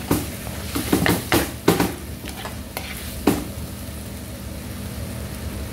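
Spatula stirring chicken and vegetables in a wok, with a quick run of scrapes and knocks against the pan in the first three seconds, then a steady sizzle of the food frying.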